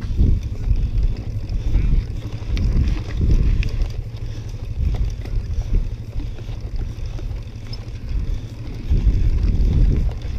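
Mountain bike rolling over grass and loose gravel, heard as a heavy, uneven rumble of wind buffeting the action camera's microphone that swells and fades, with scattered light ticks and rattles from the tyres and bike.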